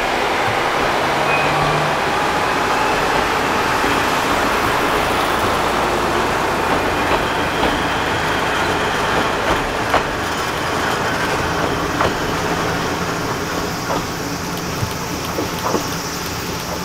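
Kiha 40 and Kiha 200 diesel railcars pulling away under power, engines running steadily. From about six seconds in, sharp wheel clicks over the rail joints come more and more often as the train gathers speed.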